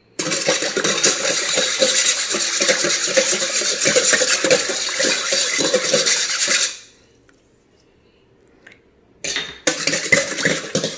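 Metal mixer beater stirred by hand through warm water in a stainless steel bowl, rapid scraping and sloshing strokes against the metal, dissolving sugar and salt. It stops about 7 seconds in, and a couple of seconds later it starts again as the active yeast is whisked in.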